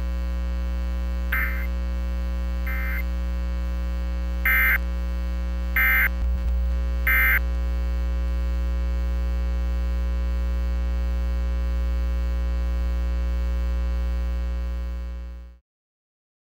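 Steady electrical hum on an emergency alert broadcast, broken by short digital data bursts: two fainter ones, then three louder ones about a second and a quarter apart. These are the EAS end-of-message tones closing a tornado warning. The audio cuts off abruptly near the end.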